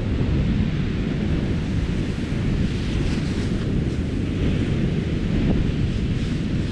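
Wind buffeting the microphone: a steady, heavy low rumble, with a few faint rustles about halfway through and near the end.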